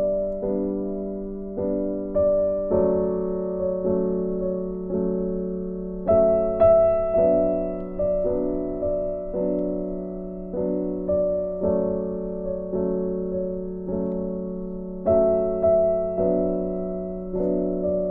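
Slow, gentle instrumental background music: single notes and chords struck about once a second, each left to fade.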